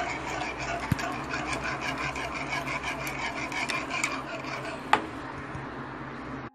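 Metal wire whisk stirring continuously in a saucepan of thickening zgougou cream, steady scraping against the pot with a few sharper clicks.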